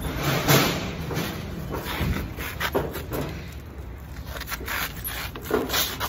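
Rubbing, scraping and knocking from things being handled and loaded by hand, with the sharpest knocks about half a second in and again near the end.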